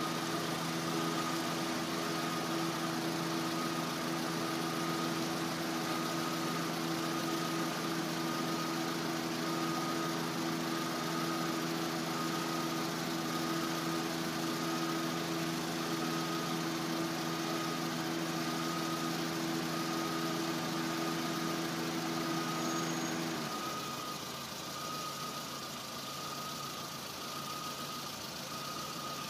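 A machine running with a steady low hum that cuts off abruptly about 23 seconds in. Through it and after it, a fainter higher tone pulses about once a second over a constant hiss.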